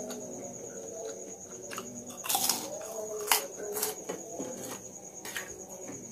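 Crickets trilling steadily at a high pitch, with eating sounds close by: a crunch, likely a bite of a fried cracker, a little over two seconds in, then two sharp clinks of a metal spoon on a china plate.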